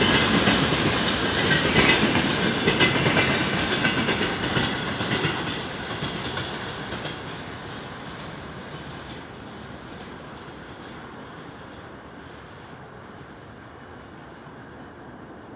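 Freight train of railway tank cars rolling past, the wheels clattering rhythmically over the rail joints. The sound fades away over the first seven seconds or so as the last wagons pass and recede, leaving only a low, steady background hush.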